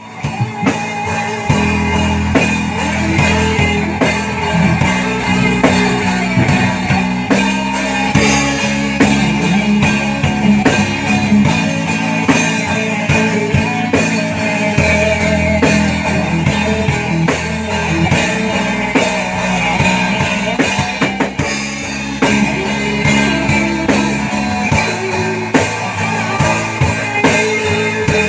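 Rock music with guitar and drum kit playing continuously, steady and loud, during a sound check.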